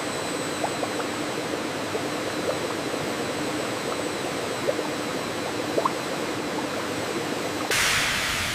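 Steady rushing, like flowing liquid, with faint scattered crackles; a louder hiss comes in near the end.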